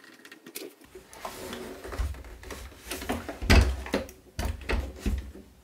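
Clicks, knocks and a few low thumps of a plastic robot vacuum being handled and turned over onto its wheels.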